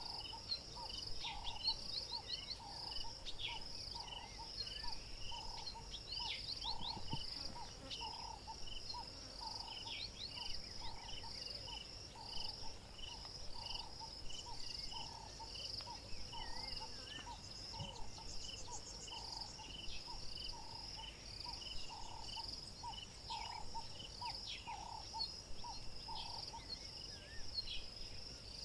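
Insects chirping steadily in fast pulses, with a lower note repeating about one and a half times a second and scattered short bird chirps.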